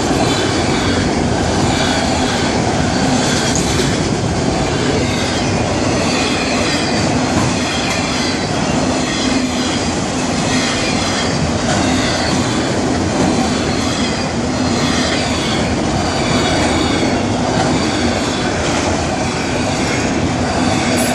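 Cars of a Florida East Coast Railway freight train rolling past close by, a loud, steady rumble of wheels on rail with faint, wavering high-pitched wheel squeal over it.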